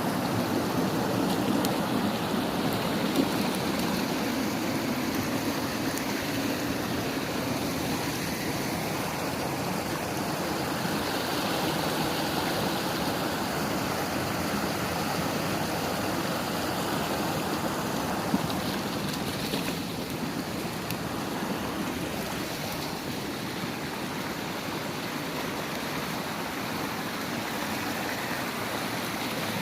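Water of a stream rushing steadily over its bed.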